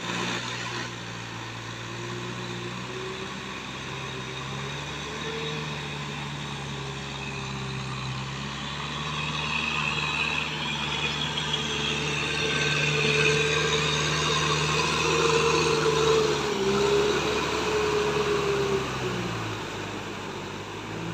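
Kubota M6040SU tractor's four-cylinder diesel engine running under load while it pulls a rotary tiller through flooded mud, with the churn of the tilled mud and water. It grows louder in the middle as the tractor comes close, and its pitch dips briefly near the end.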